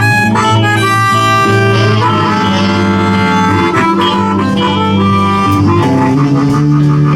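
Live electric blues band playing: a blues harmonica plays a solo of held and bent notes over guitar, bass and drums.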